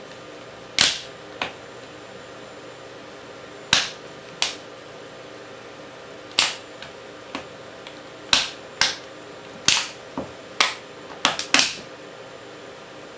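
Sharp cracks and snaps of a small black plastic casing giving way under the heel of a leather cowboy boot, about a dozen at irregular intervals, coming in quicker pairs near the end.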